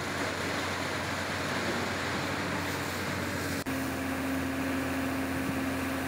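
Fire engine's motor running steadily under an even hiss of spraying water. After a short break about three and a half seconds in, its hum comes back louder.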